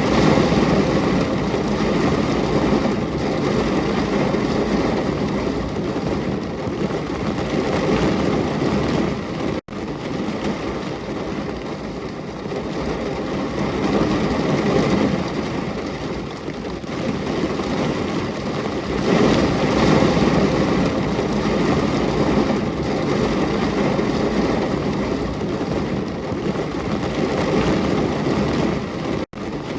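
Steady rain falling, swelling and easing slightly, with two brief cut-outs to near silence, about ten seconds in and near the end.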